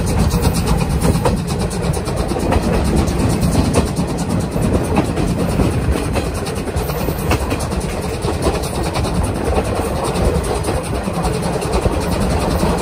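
SL Mooka passenger coach running at speed, a steady rumble of wheels on rails heard at an open coach window.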